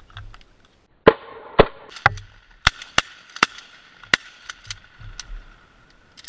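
Shotgun volley at ducks: three loud shots about a second in, half a second apart, followed by a string of sharper, thinner reports over the next few seconds.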